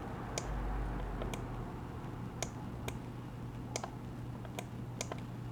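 Scattered light clicks, about ten at uneven spacing, over a steady low hum.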